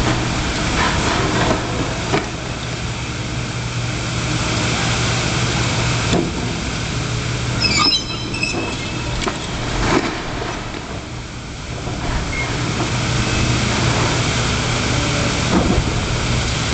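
Demolition excavator's diesel engine running steadily, with a few short knocks of debris and a brief high-pitched squeal about eight seconds in.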